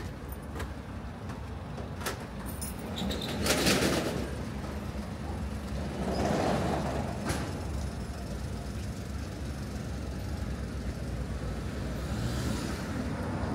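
Street traffic: a steady low rumble of passing vehicles, with a short loud hiss about three and a half seconds in and a swell of vehicle noise a few seconds later.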